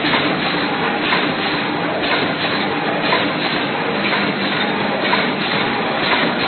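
Snack food packing machine running steadily: a continuous mechanical din with light clatter running through it.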